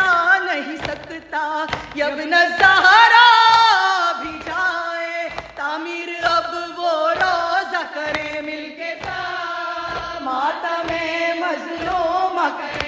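Nouha, a Shia lament chant, sung in a slow ornamented melody with long held notes, over a regular beat of low thumps.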